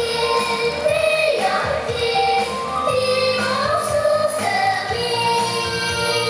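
A pop song playing: a high singing voice carrying a melody over an instrumental backing track.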